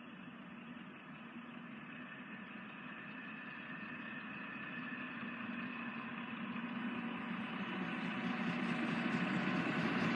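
A train approaching, its running sound with a few steady tones growing steadily louder throughout.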